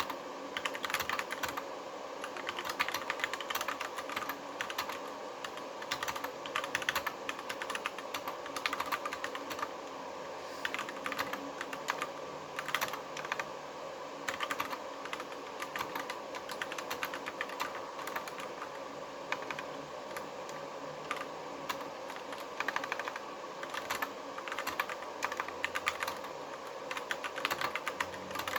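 Continuous fast typing on an Akko 3061 Neon mechanical keyboard with Gateron Yellow linear switches: dense, irregular key clicks and clacks, over a steady background hum.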